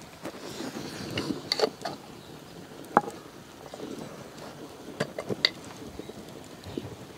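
A ladle stirring and scraping a thick ragi-and-rice mash in a clay pot. There are a few sharp clicks and knocks, the loudest about three seconds in.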